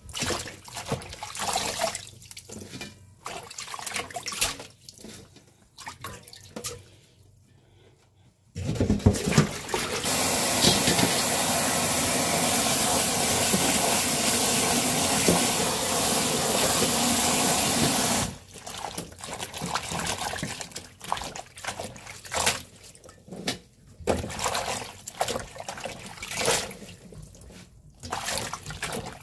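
Hands swishing and rinsing prickly lettuce leaves in a stainless steel bowl of water, with uneven splashing. About a third of the way in, the tap runs steadily into the bowl for about ten seconds, then cuts off and the splashing by hand resumes.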